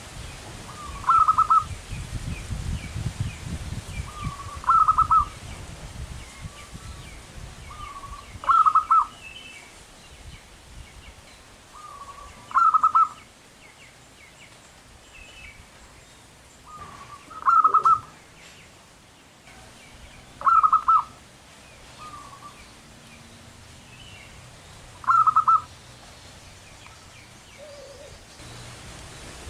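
Zebra dove cooing its rolling, stuttering song phrase seven times, about every three to four seconds. Each phrase is a soft short note followed by a louder burst of rapid notes.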